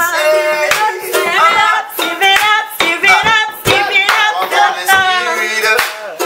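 Informal group music: singing over a strummed ukulele, with sharp claps and knocks scattered through it.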